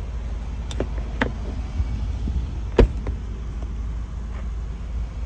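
A few sharp clicks and one louder clack, about three seconds in, as the 2021 Ford Bronco's front roof panel latches are released. Under them runs a steady low rumble.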